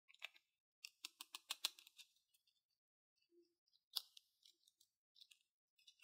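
Quiet, sharp clicks and taps of small toy pieces being handled during an unboxing, with a quick run of about eight clicks between one and two seconds in and a single stronger click about four seconds in.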